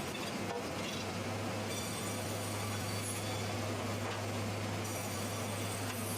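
Sawmill machinery running steadily, a constant low hum under an even mechanical noise.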